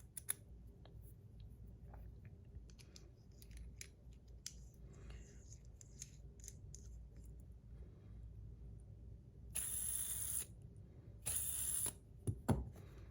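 Faint clicks and light metal handling of a stainless steel fidget spinner and its buttons, then two short hissing scrapes about a second apart near the end.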